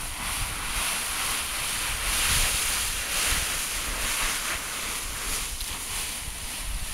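A pile of dry autumn leaves rustling and crunching as a child wades and kicks through it, in uneven swells, with wind rumbling on the microphone underneath.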